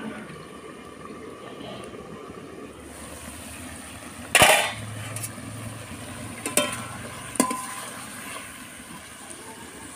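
Metal utensils clanking against a large aluminium kadai: one loud clang about four seconds in, then two sharper knocks with a metallic ring a couple of seconds later.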